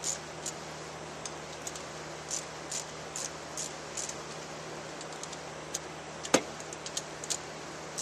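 Socket ratchet clicking in short back-and-forth strokes as the shifter's mounting bolts are tightened to a snug fit, with one sharper, louder click about six seconds in.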